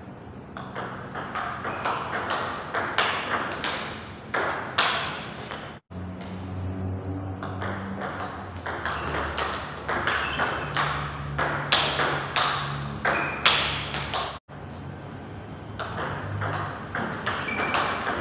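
Table tennis rallies: a fast, uneven run of sharp clicks as the celluloid ball is struck by rubber bats and bounces on the table. The clicking stops dead for an instant twice.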